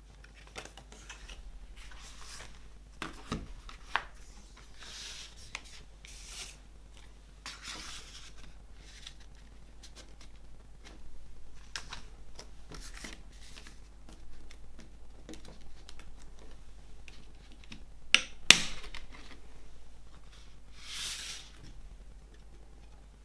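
A CD's packaging being handled: paper and plastic rustling and sliding in short swishes, with scattered light clicks and two sharp clicks close together about eighteen seconds in.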